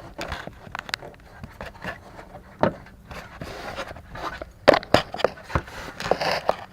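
Irregular plastic clicks, knocks and scrapes as hands work a turn signal bulb socket loose from a Nissan Rogue's light housing, with a few sharper knocks in the middle.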